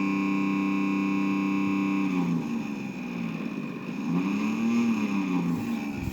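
Panasonic refrigerator making a strange droning whistle: a steady multi-toned whine for about two seconds, then the pitch wavers and swoops up and back down about four seconds in. It is an abnormal noise for a fridge this new, and it stops when the door is opened.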